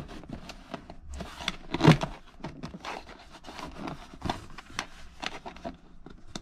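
Hands rubbing and pressing on car carpet and a floor mat: scattered scraping and rustling handling noises, with one louder knock about two seconds in.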